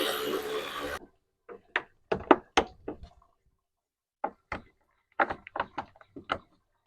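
A whirring tool fades out in the first second, then a string of sharp clicks and clinks of metal tools and parts being handled while unbolting engine-bay parts.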